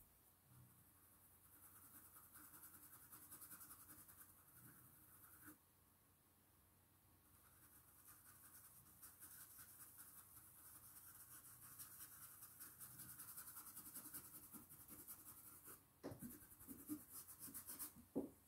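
Faint, fast scratching of a stencil brush's bristles rubbed over fabric, working paint into the cloth in two spells with a short pause between them. A few soft knocks near the end.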